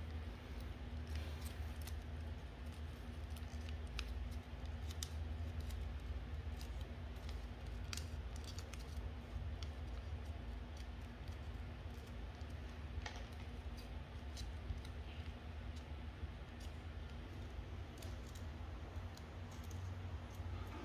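Colored origami paper crinkling and creasing as it is folded by hand, with scattered small crisp clicks, over a steady low hum.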